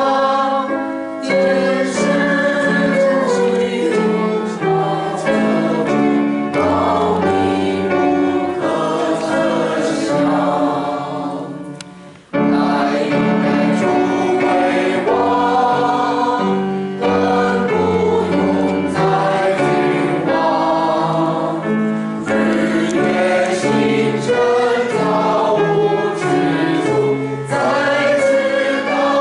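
Church congregation singing a hymn together in Chinese, in slow held chords. The singing breaks off sharply about twelve seconds in and resumes at once.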